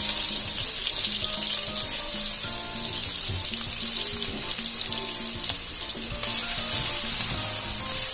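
Sliced red onions frying in hot oil and ghee in a nonstick pan: a steady sizzle that grows louder about six seconds in, as a spatula starts stirring them.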